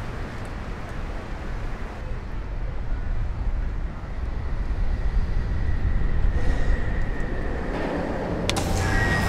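A steady low mechanical rumble that grows louder from about halfway, with a sharp click near the end as a button on a ride's control panel is pressed.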